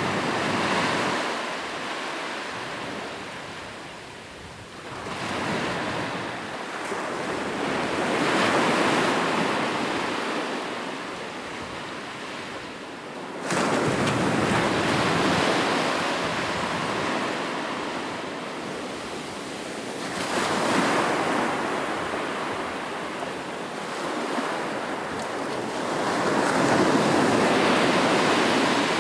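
Ocean surf: waves breaking and washing up a beach, the rush swelling and fading about every six seconds, with one wave crashing in abruptly about halfway through.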